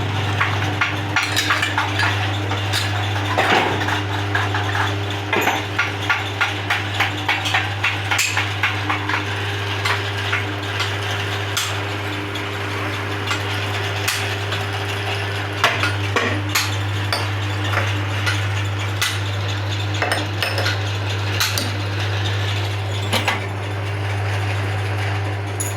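Manual metal lathe running with a steady hum while a thread is cut, with many light metallic clicks and clinks over it, in a quick run of them between about five and nine seconds in.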